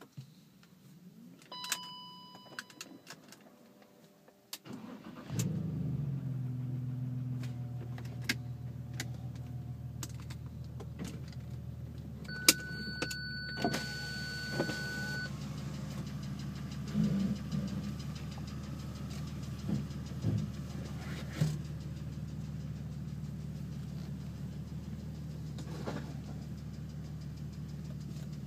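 BMW M54 straight-six, exhaust straight-piped with two resonators and no mufflers, cranking and catching about five seconds in with a short flare, then idling steadily. Before it starts there are a few clicks and a short electronic chime, and a steady electronic beep sounds for about three seconds during the idle.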